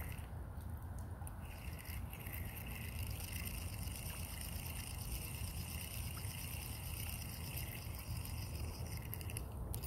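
Steady outdoor ambience by a canal: a constant low rumble, like wind on the microphone, with a high, even buzzing drone above it.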